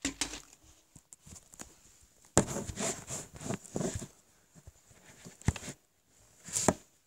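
Handling noise from a camera held close: rustling, rubbing and knocks near the microphone, with the loudest knock about two and a half seconds in.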